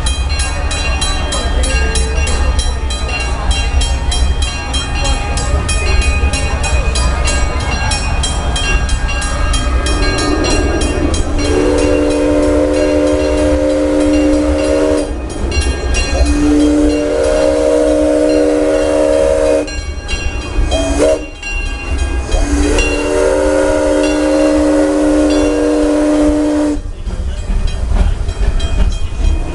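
A crossing bell rings rapidly and steadily for about the first ten seconds, then fades. A steam locomotive whistle then sounds three long blasts of steady pitch as the train approaches the crossing, over a constant low rumble of the moving train.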